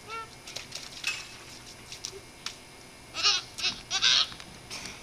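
A young child's high-pitched squeals: a short one at the start, then two loud ones about three and four seconds in, with scattered faint clicks between them.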